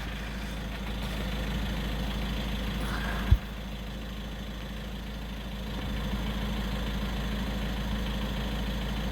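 VW T6 Transporter's twin-turbo four-cylinder diesel engine idling steadily, its twin turbocharger failed. A single sharp thump about a third of the way in.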